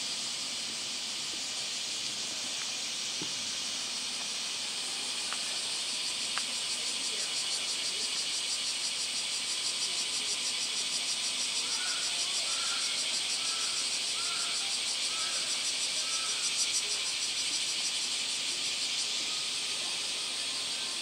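A chorus of summer cicadas makes a steady high hiss, with a fast pulsing trill that swells through the middle.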